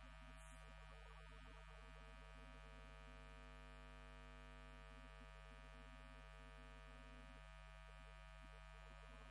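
Near silence: a steady electrical mains hum, with a choir singing sustained notes very faintly beneath it.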